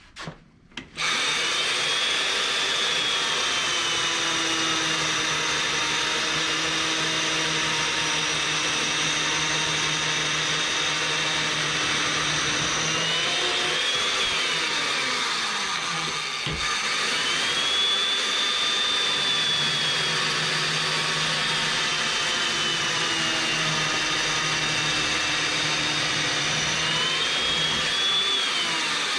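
Makita 7104L electric chain mortiser switched on about a second in, then running as its cutting chain plunges into a timber beam. The motor's pitch sags and recovers several times as the chain bites into the wood and eases off.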